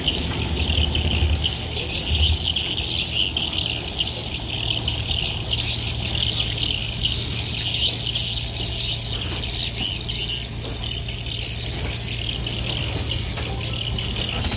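Dense, continuous high chirping of many birds over a steady low hum, with a couple of low rumbles in the first few seconds.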